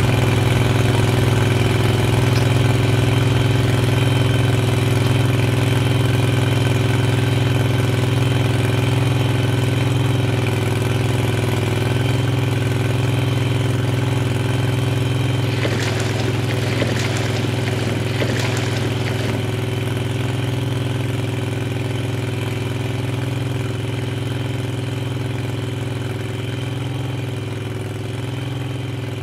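Small outboard motor on a fish-farm skiff running steadily at low speed, slowly growing fainter. A brief patch of rougher noise sits over it about halfway through.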